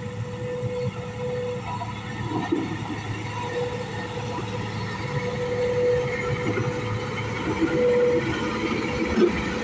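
Komatsu GD535-5 motor grader's diesel engine running under load as the grader drives forward, with its blade scraping and pushing loose laterite gravel. A whine comes and goes over the engine's steady hum, and the sound grows louder as the machine comes close.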